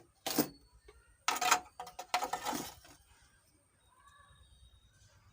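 Small tools and parts handled on a workbench while a wire is being reconnected inside an amplifier. There is a click, then a few short scrapes and clinks within the first three seconds, followed by quiet room tone.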